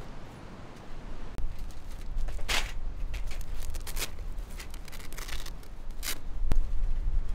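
Rustling and scraping of a grey fabric pouch being pulled out and smoothed flat on pebbles by hand, in a handful of short bursts, with a sharp click about six and a half seconds in. A steady low rumble sits underneath.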